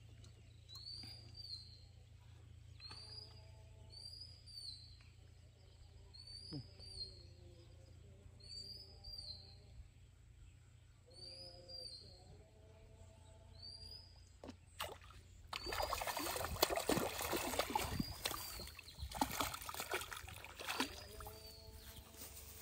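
A hooked fish splashing and thrashing at the surface as it is hauled in to the bank, loud and in surges, starting about two-thirds of the way in. Before that, birds calling: short chirps repeating about once a second, with a few lower calls.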